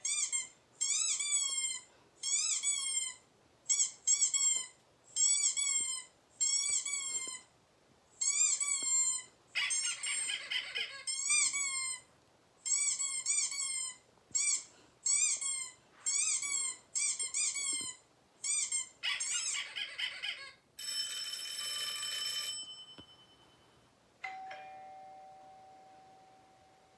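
Sound clips played to test a dog's reaction: a run of about fifteen short high-pitched squeaks, each bending up then down in pitch, broken twice by a noisy burst. Then comes a hiss with steady tones, and a single ringing chime near the end that fades away.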